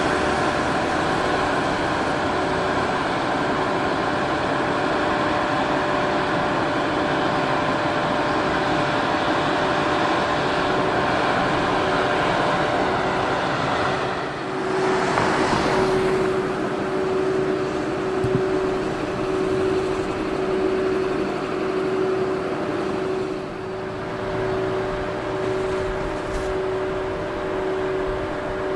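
Japanese level-crossing warning bell ringing in a steady, even pulse while a train hauled by an EF81 electric locomotive rumbles across. The train noise is heaviest at first, swells into a brief rush about halfway, then eases while the bell keeps ringing.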